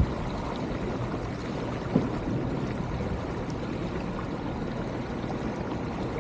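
Sailboat underway: a steady rush of water along the hull, with one short knock about two seconds in.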